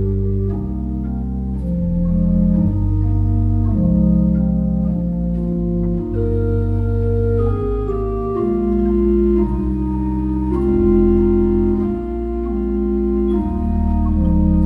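Pipe organ playing a piece of sustained, full chords, with low bass notes that change every second or two beneath a moving upper line.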